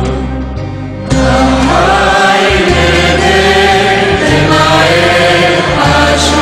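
Syriac Orthodox chant: voices singing a slow hymn of the Passion over a low held drone. The singing swells louder about a second in.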